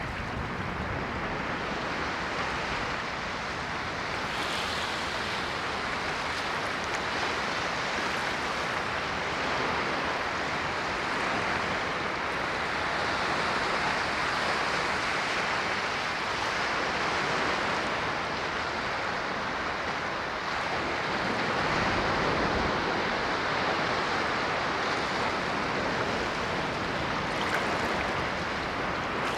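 Ocean waves washing in, a steady rushing surf that swells and eases gently.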